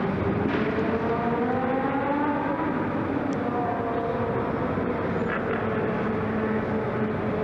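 Several racing kart engines running at once, their pitches rising and falling.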